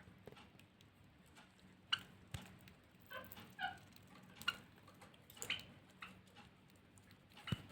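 Finches giving scattered short, soft chirps mixed with light taps and clicks, a few seconds apart, over a faint steady hum.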